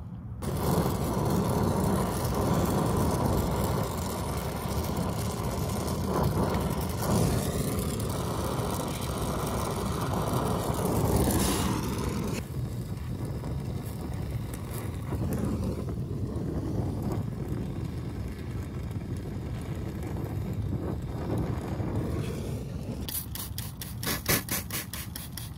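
Brazing torch flame burning with a steady hiss while a filter drier is brazed into the copper refrigerant line; it starts suddenly and turns quieter about halfway through. A quick run of clicks comes near the end.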